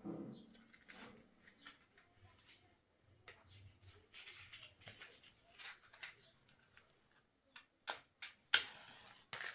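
Faint handling rustles, then near the end a few sharp scrapes of a match struck against its box, the loudest followed by a brief hiss as it flares.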